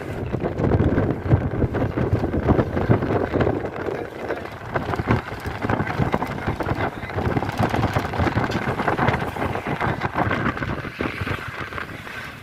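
A vehicle's engine running on the move, with rough rumbling and wind buffeting the microphone.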